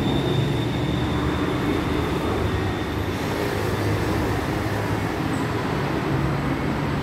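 BTS Skytrain train running at an elevated station: a steady rumble with a low motor hum, and a high whine that fades out about three seconds in.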